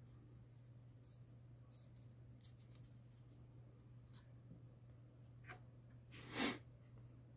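Faint scratching and handling sounds of small tools and parts during a speaker-cone repair, with one louder brief scrape or rustle about six and a half seconds in, over a steady low hum.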